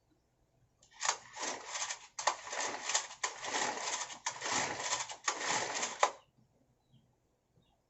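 Recoil starter of a Honda GX35 four-stroke brush-cutter engine pulled about five times in quick succession, the engine turning over with a rattle but not catching.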